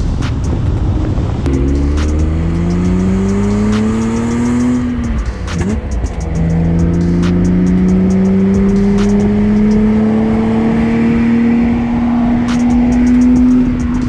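BMW E34 M5's straight-six engine pulling hard under acceleration, its pitch climbing steadily, then a gearshift about five and a half seconds in drops the revs before it climbs again through the next gear.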